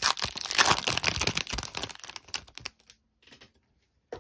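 A shiny foil trading-card pack being torn open and crinkled by hand, a dense crackling for about two and a half seconds, then only a few faint rustles.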